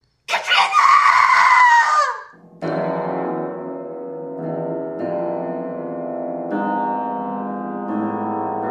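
A loud, shrill scream lasting about two seconds, its pitch falling as it breaks off. About half a second later, keyboard music with held chords begins and changes chord every second or two.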